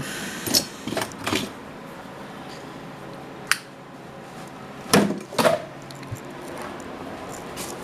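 Metal tools and clamps clinking and clattering in a workshop drawer as it is rummaged through, in several short bursts with a single sharp click about three and a half seconds in.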